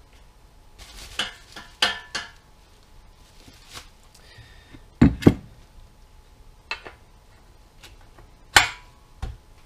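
Metal-on-metal knocks and clicks as motorcycle steering yokes (triple clamps) are handled and fitted onto the steering stem and headstock. They come irregularly, with the loudest a sharp double knock about five seconds in and another knock near the end.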